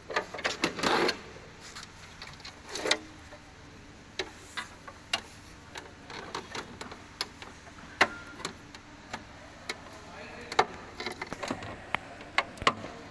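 Hard plastic parts of a hand push seeder being handled and fitted together, an orange plastic stand pressed onto the clear plastic seed box: irregular clicks and knocks, with a short scraping rustle about a second in.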